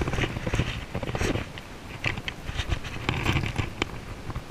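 Scratchy rustling with many small clicks: fly line being stripped in by hand while a small largemouth bass is brought to hand, with handling noise close to the microphone.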